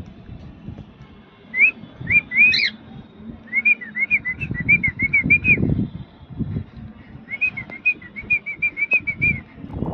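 Cockatiel chirping: a few separate chirps, then two fast runs of short up-and-down whistled notes. Wind buffets the microphone with a low, gusty rumble.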